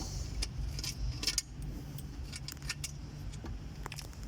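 Scattered light metallic clinks and taps of hand tools and bolts as an intake manifold is unbolted to split it in half.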